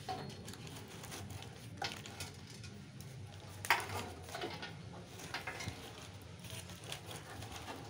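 Charcoal lumps and a wire grill rack being handled while a charcoal fire is set up: scattered light clinks and knocks over a faint low hum.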